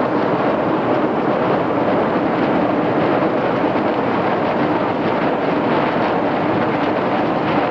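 Steel hull of a container ship pushing through first-year sea ice: a loud, steady crunching rush as the ice breaks up and scrapes along the side.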